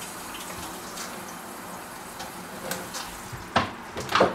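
Cold water running from a kitchen tap, a steady hiss, with two sharp knocks near the end.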